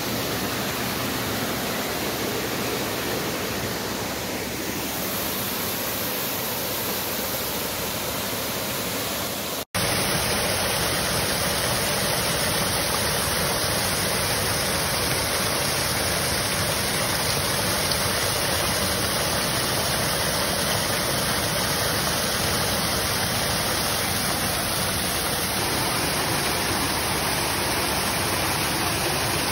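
Steady rush of a shallow, fast-flowing stream. After an abrupt cut about ten seconds in, a small waterfall pours over a rock ledge into a pool with a slightly louder, steady rush.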